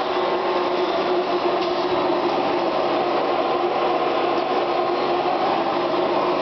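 Centrifugal blower of a sawdust vacuum conveying system running steadily: a loud, even mechanical drone with a couple of held tones over a rush of air.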